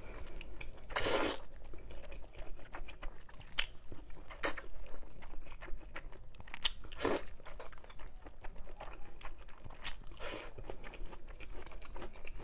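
Close-up eating of glass noodles in chilli sauce: chewing with many small mouth clicks, and a few longer slurps about a second in, about seven seconds in and about ten seconds in.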